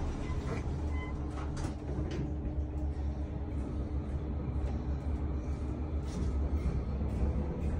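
Elevator car travelling: a steady low rumble with a constant hum, and a few light clicks in the first couple of seconds.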